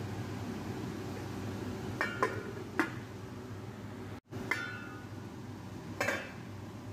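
Glass pot lid with a steel rim clinking against a frying pan five times, each clink ringing briefly, over a steady background hum.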